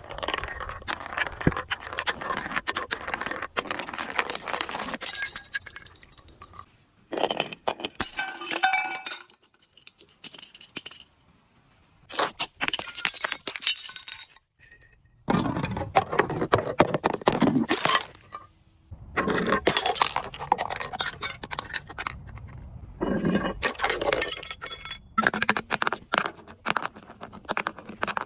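Glass bottles breaking and being crushed: repeated bouts of crunching, cracking and clinking shards, broken by short pauses about every three to four seconds.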